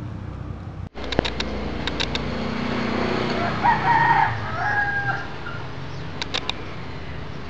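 A rooster crowing once, a little past the middle, in two drawn-out parts.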